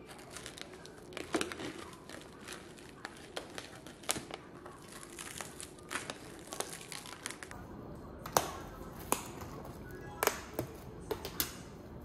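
Plastic cling film crinkling and crackling as it is peeled off plastic takeaway food containers. It makes a run of irregular sharp crackles that grow louder and sharper in the second half.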